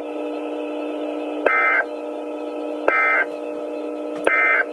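Emergency Alert System end-of-message code on NOAA Weather Radio: three short, identical screechy digital data bursts about a second and a half apart, signalling the end of the warning broadcast. A steady buzz from the radio runs underneath.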